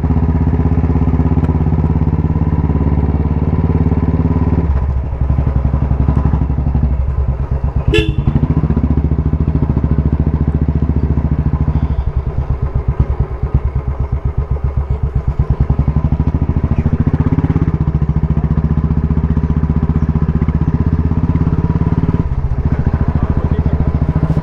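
Motorcycle engine running under way as the bike is ridden, with a steady pulsing beat. The engine note drops about five seconds in, and the beat slows and stands out plainly in the middle before picking up again. There is one short sharp click about eight seconds in.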